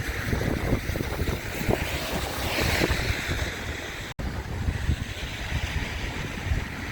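River Calder floodwater rushing into an overflow basin: a steady hiss that swells a little about halfway through, with wind buffeting the microphone. The sound cuts out for an instant about four seconds in.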